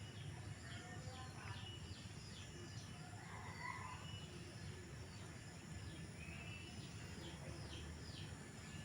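Birds chirping in many short, quickly repeated notes over a low, steady background rumble.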